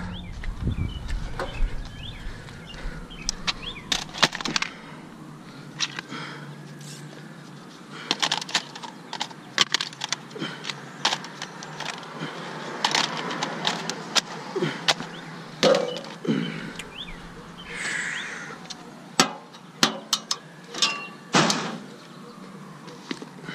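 Handling of an old laptop: scattered sharp clicks, taps and knocks of its plastic casing and panels being worked by hand and set against concrete and a motorcycle, with one louder knock near the end.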